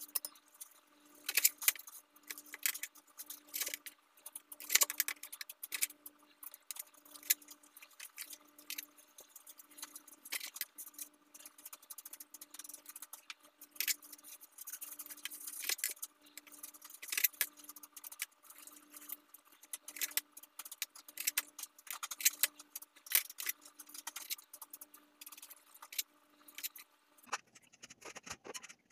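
A knife and fork clicking and scraping against a ceramic plate while cutting cooked chicken breast into small pieces. The sounds come as a rapid, uneven run of sharp ticks and scrapes and stop shortly before the end.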